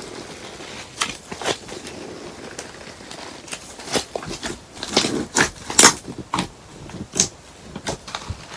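Slime being squished and pressed by hand, giving irregular sticky clicks and crackling pops, thickest about five to six seconds in.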